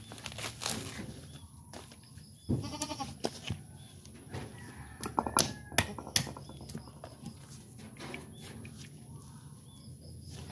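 Coconut husk being pulled and torn apart by hand, with rustling and ripping of the dry fibres. A goat bleats once about two and a half seconds in, and a few sharp knocks near the middle are the loudest sounds.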